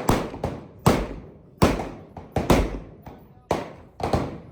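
A string of gunshots, about eight at uneven spacing, each sharp crack trailing off in a long echo.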